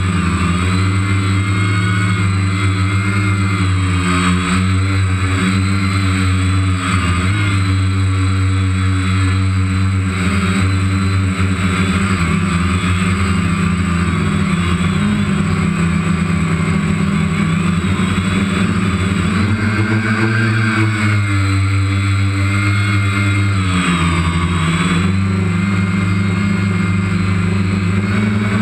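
Multirotor drone's electric motors and propellers buzzing steadily, heard through the camera on board. The pitch rises and falls a couple of times near the end as the drone manoeuvres.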